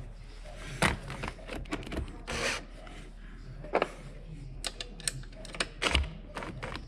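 Hand tools and a cordless impact wrench being handled: scattered clicks and knocks of metal and plastic, with a short scrape a little over two seconds in.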